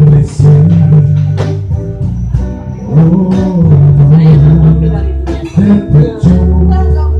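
Live band music: guitar playing with a singer, a steady, continuous song.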